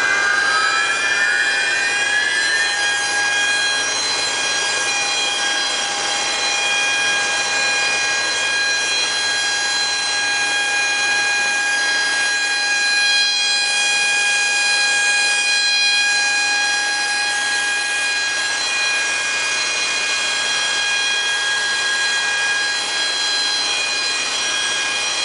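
Regenerative blower with a finned cast-aluminium housing running: a steady high whine of several tones over a rushing air noise, its pitch rising over the first couple of seconds and then holding. The owner takes the sound from inside the blower for metal-on-metal contact, perhaps the impeller rubbing the housing.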